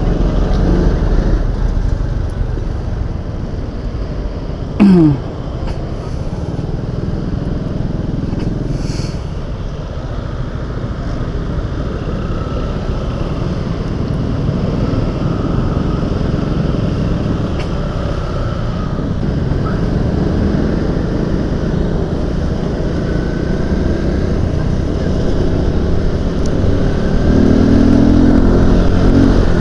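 Motorcycle engine running and road noise, picked up by a bike-mounted action camera while riding in slow city traffic. About five seconds in there is a brief loud sound that drops in pitch, and near the end the engine revs up and gets louder as the bike speeds up.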